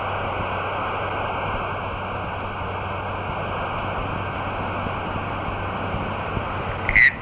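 Steady rushing hiss with a faint low hum beneath it. Right at the end a louder warbling sound cuts in.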